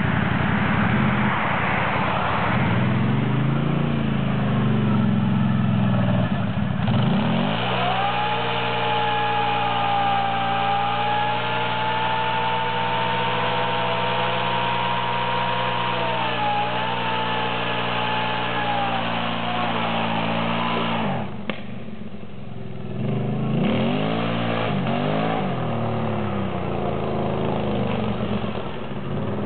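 Can-Am Renegade 800 ATV's V-twin engine revving in a burnout. It climbs steeply to high revs and holds there for about thirteen seconds while the rear tyres spin in smoke, then drops off sharply. A few short blips of the throttle follow, then a lower steady running sound as the quad moves off.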